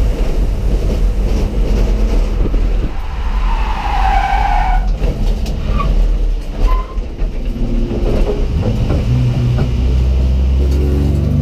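Race car's engine and road noise heard inside the bare, caged cabin at speed on track. A brief high squeal comes about four seconds in, and near the end the engine pitch climbs as the car accelerates.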